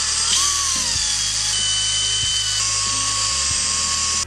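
Power drill running a small twist bit through a wood block, a steady high whine as it reams out pilot holes to widen them slightly, with background music underneath.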